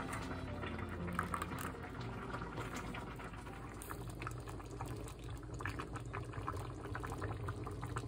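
Thick black bean sauce simmering in a pot, bubbling steadily with many small pops.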